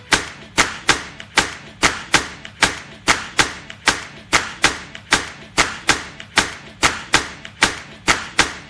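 Background music in a percussion-only break: a steady beat of sharp percussive hits, about two and a half a second, with lighter hits between and no melody.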